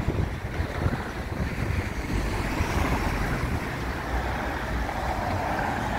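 Road traffic passing close by: a steady rumble of car engines and tyres that grows a little louder in the second half.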